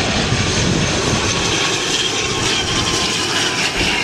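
ATR 72 twin-turboprop airliner passing low on approach, its engines and propellers giving a steady whine over a loud rushing noise. A rough, uneven rumble underneath fits strong gusty wind on the microphone.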